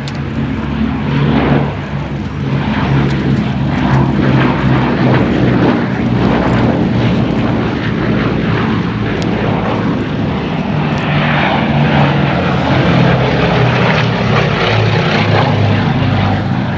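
The twin Bristol Mercury nine-cylinder radial engines of a Bristol Blenheim Mk I run steadily as it flies a low pass. The engine note drops slowly in pitch over the second half as the aircraft goes by.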